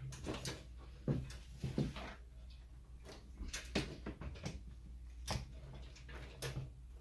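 Scattered knocks and clatters as a partly assembled metal server rack frame is handled and turned over, about nine irregular hits.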